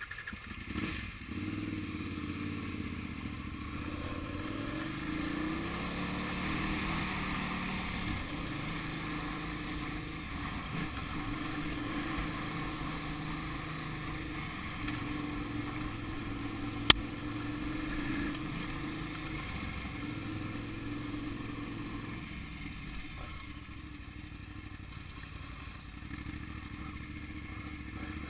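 Motorcycle engine running under way on a dirt track, its pitch rising and falling with the throttle during the first several seconds, then holding steadier. A single sharp click a little past the middle stands out above it.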